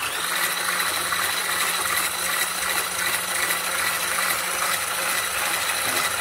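Electric hand whisk running steadily, its wire whisk beating butter, sugar and egg into a creamy cake batter in a glass bowl, with an even motor whine.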